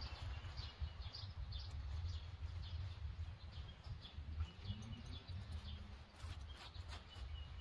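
Outdoor ambience: scattered faint bird chirps over a steady low rumble, with a few short rustles or ticks in the second half.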